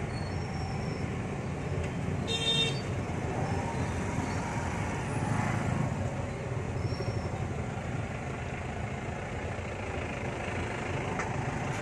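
Steady road and engine noise of a moving car, heard from inside the cabin, with a brief vehicle horn toot about two and a half seconds in.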